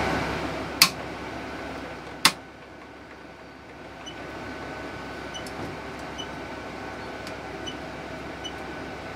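Two sharp clicks about a second and a half apart. Then come several short, faint electronic beeps as the keypad of a CDI SureTest torque analyzer is pressed, over a steady background hum.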